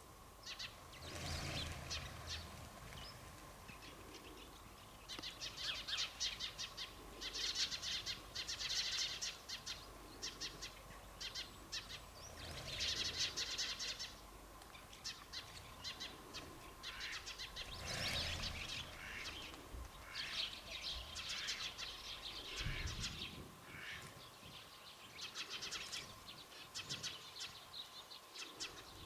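A flock of sparrows chirping, many birds at once in overlapping bouts of a second or two with short lulls between.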